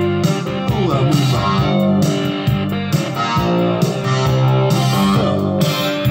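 Guitar-led music with a steady beat playing through a pair of Monitor Authority CM-1 bookshelf speakers as a listening demo.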